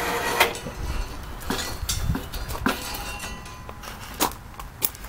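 Steel pallet lifter clinking and knocking, metal on metal, as it is lowered and settles: half a dozen sharp knocks, irregularly spaced.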